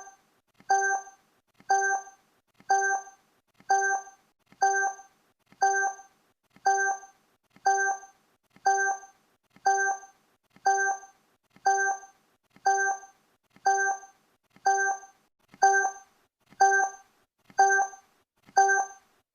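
Countdown timer sound effect: a short, pitched electronic blip repeating once a second, each one the same, marking off the seconds.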